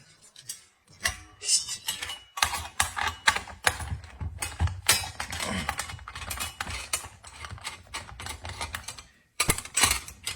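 Irregular clicks, knocks and rattles of plastic and metal parts being handled as a small chainsaw's handle and protective cover are taken off.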